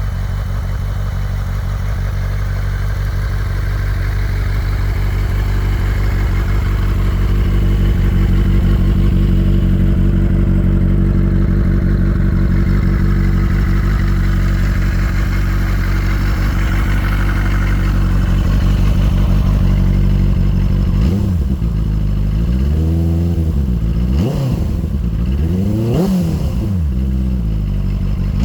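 Benelli TNT600i's 600 cc inline-four engine on its stock exhaust, idling steadily, then blipped several times in its last several seconds, the pitch rising and falling with each rev.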